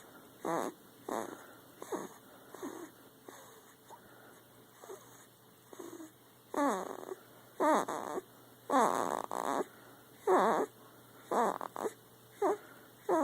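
A sleeping pet snoring as she dreams: a string of short, pitched squeaky breaths at irregular intervals, some sliding down in pitch, the loudest coming in the middle.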